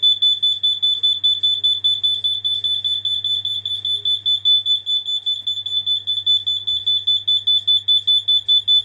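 Home alarm sounding on its test button: one high piercing tone beeping rapidly, about five times a second, very loud.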